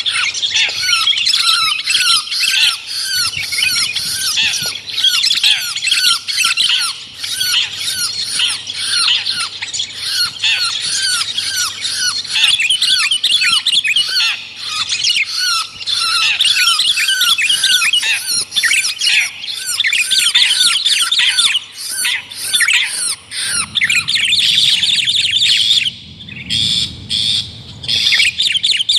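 Bird-lure recording of long-tailed shrike (cendet) calls mixed with sooty-headed bulbul (kutilang) calls: a dense, fast run of harsh, squawky notes repeated several times a second, becoming more broken with short gaps near the end.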